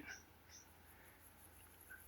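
Near silence: faint background with a couple of brief, faint high chirps in the first half-second.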